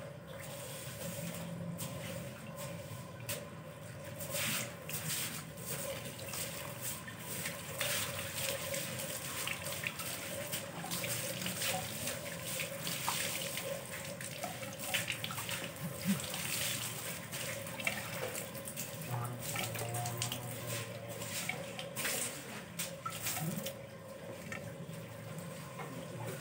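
Water being poured onto the soil of a freshly root-pruned potted plant to water it in: a steady running and splashing with many small irregular splashes.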